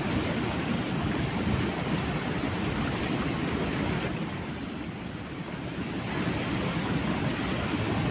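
Steady rushing of water flowing in a drainage ditch, easing off a little about four to six seconds in.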